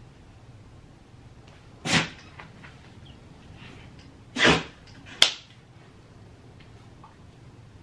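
Two sneezes from a woman, about two and a half seconds apart, followed closely by a sharp click.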